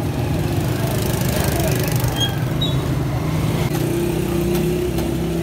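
A small motorcycle engine idling steadily close by, amid street noise.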